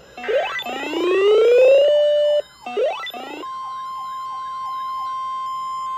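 Weather alert radio going off for a new warning. Two siren-like rising wails come in the first three seconds. About three and a half seconds in, a steady single-pitch alarm tone starts and holds: the NOAA Weather Radio warning alarm tone. A short falling chirp repeats quickly alongside it.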